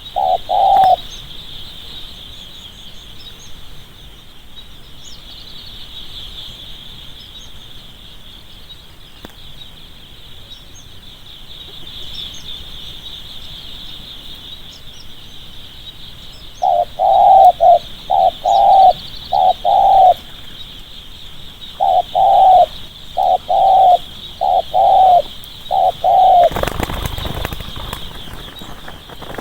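Spotted dove cooing: one coo right at the start, then two quick runs of about five and six coos in the second half, the fast 'thúc gù' style of cooing, over a steady high hiss. A brief rustle or flutter comes near the end.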